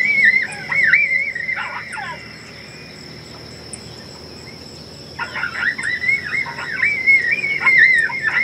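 Electronic predator call playing coyote pup-distress sounds: high, wavering whines and yelps that bend up and down in pitch, in two bouts, the second starting about five seconds in. A steady high insect trill runs underneath.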